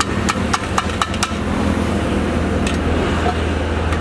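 Stainless steel serving vessels and plates clinking: a quick run of about six metallic clinks in the first second or so, then two fainter ones near three seconds, over a steady low rumble.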